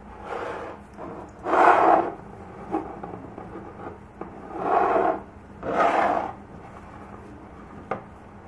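Paper towel rubbed around the rims of glass canning jars: four short wiping strokes, the second the loudest, with a small click near the end.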